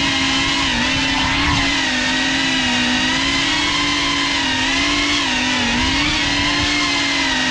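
Brushless motors and propellers of a Cinelog 35 ducted cinewhoop FPV drone, a steady buzzing whine whose pitch dips and rises a little with the throttle, picked up up close by the camera riding on the drone.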